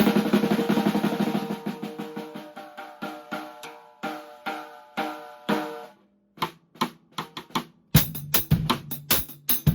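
Drum kit being played: a loud accented hit rings out while quick strokes continue over it, then thin out and stop for a moment. A few light taps follow, and a full groove with bass drum comes back in about eight seconds in.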